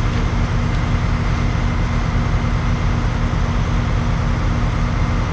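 Dump truck's diesel engine running at a steady speed, a constant low drone with no change in revs.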